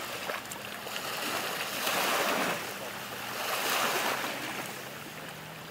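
Waves washing in, surging twice, about two and four seconds in, under the faint steady drone of a jet ski's engine out on the water.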